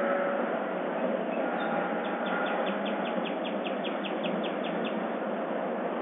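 Dawn chorus birdsong over a steady background hiss, with faint distant calls; from about two seconds in, one bird gives a quick run of about fifteen short, falling notes lasting nearly three seconds.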